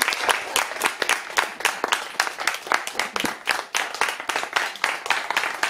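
A small group of people clapping, a dense, steady patter of hand claps.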